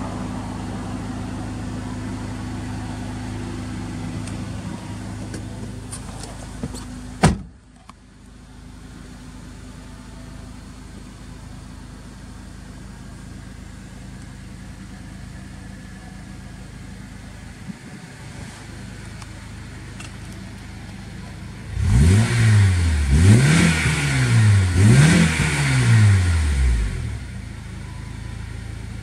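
Honda Accord Euro R's K20A 2.0-litre four-cylinder engine idling through a Mugen titanium exhaust. A car door shuts with a thud about seven seconds in, and the idle is quieter after it. Near the end the engine is blipped three times in quick succession before settling back to idle.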